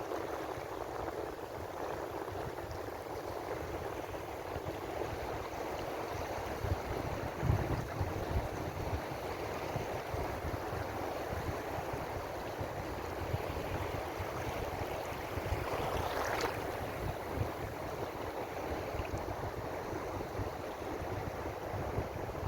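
Ocean waves washing on a shore in a steady, continuous wash with a low rumble beneath. One wave surges louder and brighter about two-thirds of the way through.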